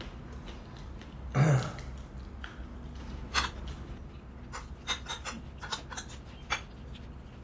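Eating at a table: metal cutlery clicking and scraping on ceramic plates and chewing, with a string of sharp clicks in the second half. About a second and a half in there is one short, loud, low vocal sound, like a burp or an 'mm'.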